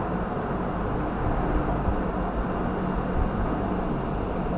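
Lamb lungs bubbling and sizzling in their own released water in a pot over high heat, a steady even bubbling.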